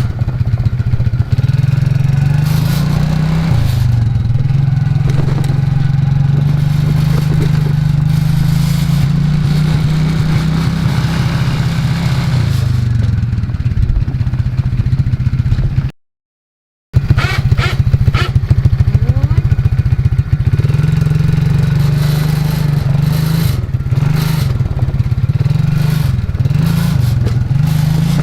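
ATV engine running under way, its revs holding steady for stretches and then dipping and rising as the throttle is worked. The sound drops out completely for about a second around the middle.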